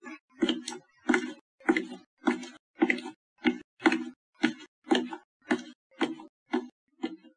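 Footsteps going up a staircase at a steady pace, about two steps a second, growing fainter near the end.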